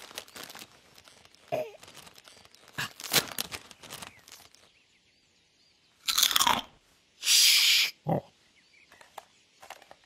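Crisps being crunched from a snack packet: a run of crackly crunches and rustles, then a louder burst about six seconds in. A loud hiss follows, lasting under a second.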